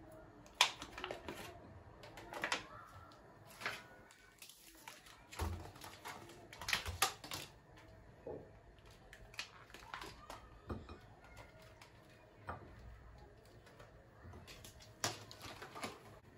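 Kitchen work: scattered light clicks and knocks, irregularly spaced, of dishes and utensils being handled.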